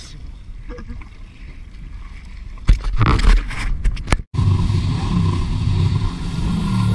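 Jet ski at sea: a low engine rumble with water around the hull, then a run of loud knocks and buffets on the microphone about three seconds in. After a brief dropout, the jet ski's engine runs steadily at speed with water spray.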